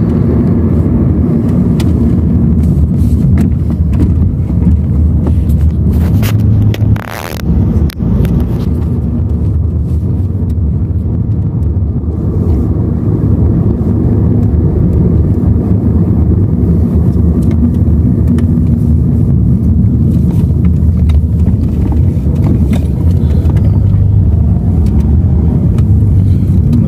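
Car cabin noise while driving: a steady low engine and tyre rumble. It dips briefly, with a short knock, about seven seconds in.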